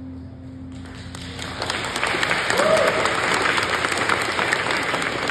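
The last notes of an acoustic guitar fade out, then an audience breaks into applause about a second in, building to full clapping. A single short whoop rises and falls from the crowd near the middle.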